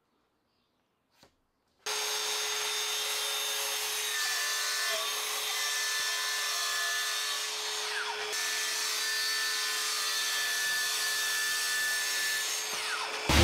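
Cordless track saw cutting a sheet of 9mm MDF along its guide rail. After near silence, the saw starts abruptly about two seconds in and runs steadily through the cut, with a steady motor whine.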